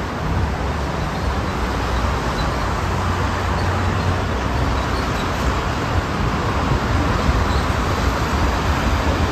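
Jet engines of a twin-engine widebody airliner climbing away in the distance: a steady, broad rumble.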